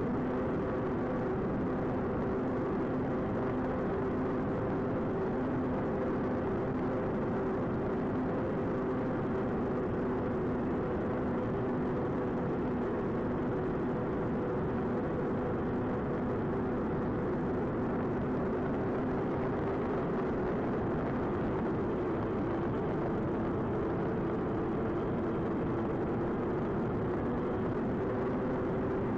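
Twin electric motors and propellers of an AtomRC Swordfish FPV plane in cruise, heard on board as a steady multi-tone drone mixed with wind rush. The pitch rises slightly near the end.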